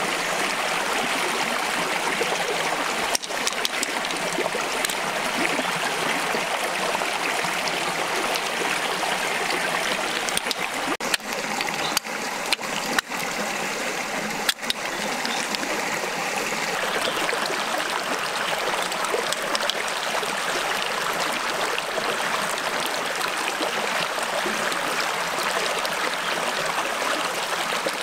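Stream flowing over rocks: a steady rush of water, with a few brief clicks in the middle.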